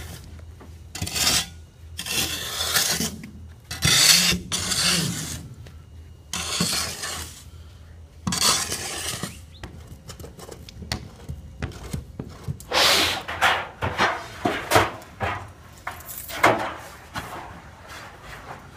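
Flat spade scraping through packed sand at the foot of a steel pool wall in repeated strokes, then a straight-edge screwdriver scraping and prying at the wall's metal bottom track, giving sharper clicks and scrapes.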